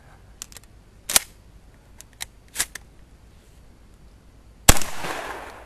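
Several short sharp cracks in the first three seconds, then one very loud Benelli shotgun blast near the end that rings on with a long echoing tail.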